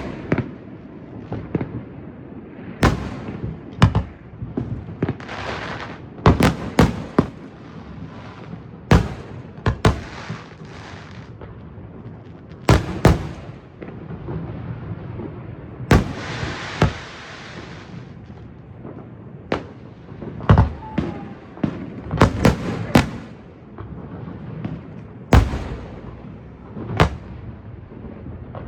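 Fireworks display: aerial shells bursting one after another, a sharp boom every second or two, with two stretches of crackling hiss lasting a second or so.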